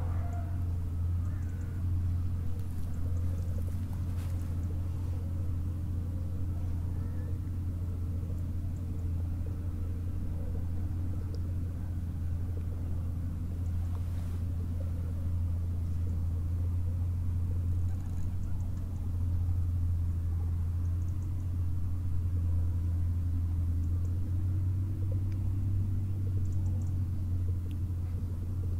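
Steady low engine rumble from an unseen motor, with a hum that drifts slightly in pitch.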